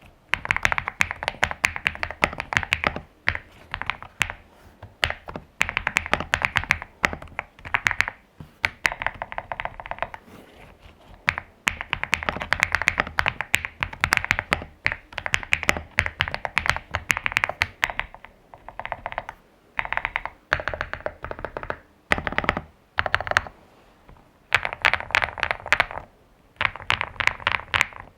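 Zuoya GMK87 mechanical keyboard with hand-lubed Feker Matcha Green switches and PBT doubleshot ASA-profile keycaps, typed on in fast runs of keystrokes with short pauses between bursts. The case is tape-, PE-foam-, Kilmat- and Holee-modded, with its stock silicone and Poron foams removed.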